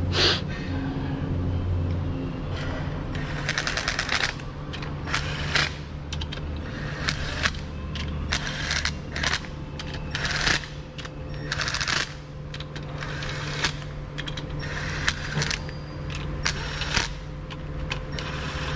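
Repeated short bursts of rapid metallic clicking and clatter from hand tools working on engine parts, with a steady low hum underneath.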